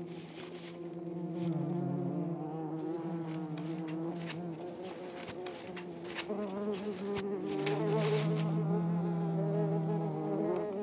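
Many wasps buzzing around their disturbed ground nest as a crested honey buzzard digs into it. The buzz wavers and swells twice, with scattered sharp scratching clicks from the bird digging in soil and dry leaves.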